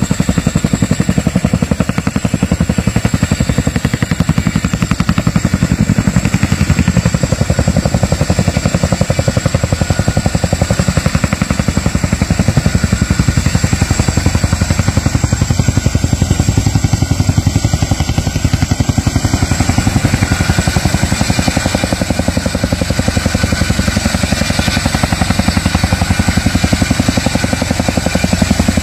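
Boeing CH-47 Chinook tandem-rotor helicopter hovering close by: loud, fast, even rotor-blade chop, with a steady high whine above it.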